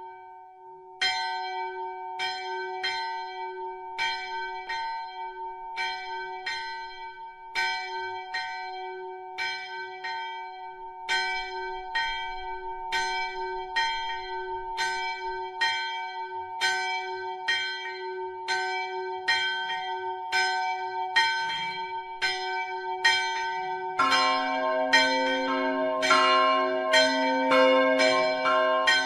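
Church bells ringing in quick repeated strikes, each stroke leaving a steady hum. About 24 seconds in, a lower-pitched bell joins and the ringing gets fuller and louder.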